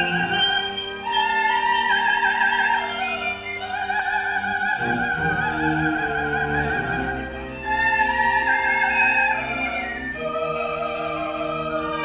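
A soprano sings long held high notes with wide vibrato, moving to a new pitch every couple of seconds, over sustained chords from a small string ensemble.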